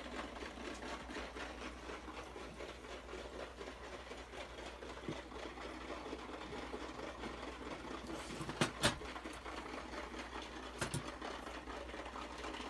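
Light, rapid rattling and ticking as a small brushed electric motor's armature is turned and rolled by its shaft on a workbench, with a few sharper clicks in the second half.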